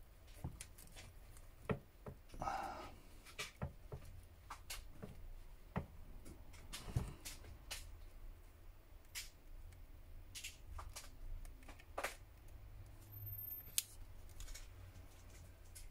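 Plastic opening pick working along the edge of a smartphone's glued back cover, cutting through the adhesive: a string of irregular faint clicks and short scrapes.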